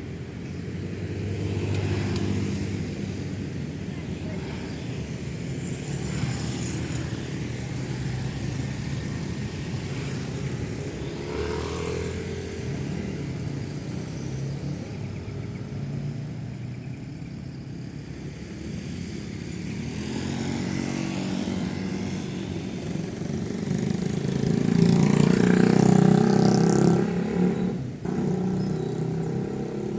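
Steady road traffic of motorcycles and cars passing, with engines and tyre noise running continuously and swelling as vehicles go by. The loudest is a heavy vehicle passing close near the end.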